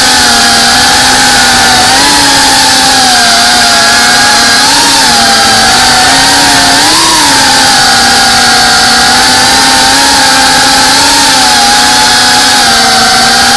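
GEPRC FPV drone's brushless motors and propellers whining loudly, heard close up from the onboard camera. The pitch wavers with the throttle, rising briefly several times, most clearly about halfway through.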